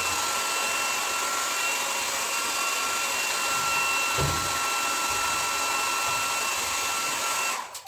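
Electric hair dryer running steadily: a constant rush of blown air with a thin high whine on top, and a brief low bump about four seconds in. It is switched off just before the end.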